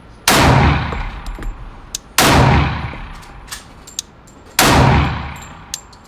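Three slow, single pistol shots from a Glock 21 Gen 5 chambered in .45 ACP, each sharp blast dying away over about a second, with a few light sharp clicks between them.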